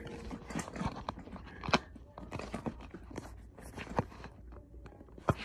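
Drum hardware being handled and set in place: scattered light knocks and clicks with some rustling, the sharpest knocks about a second and a half in, near four seconds in and near the end.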